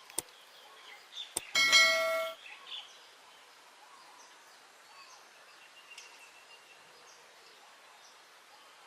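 Two sharp clicks, then a short metallic ring of under a second, about a second and a half in. After it comes faint outdoor ambience with small bird chirps.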